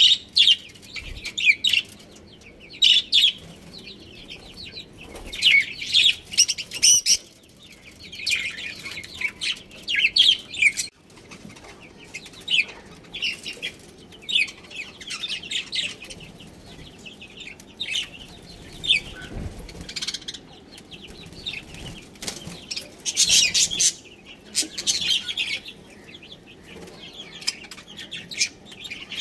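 Budgerigars chirping and chattering: clusters of quick, high chirps come every second or two, over a low, steady background hum.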